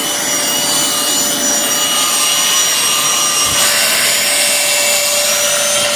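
Hoover Dual Power Pro carpet washer running with its spinning upholstery brush scrubbing a wet couch cushion while the hose sucks up water: a loud, steady suction noise with a steady whine and the rasp of the brush rubbing on fabric.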